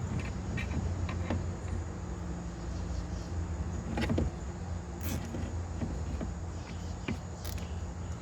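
A few light clicks and rustles of wiring and small parts being handled, over a steady high insect trill and a low hum.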